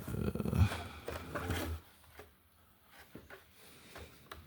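Handling noise from rummaging through a box of carded toy cars: rustling and knocking for about two seconds, then only a few faint taps.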